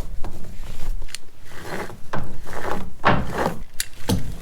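Metal buckles and clips of a safety harness clinking and rattling as it is handled and fitted, over a low rumble of wind on the microphone.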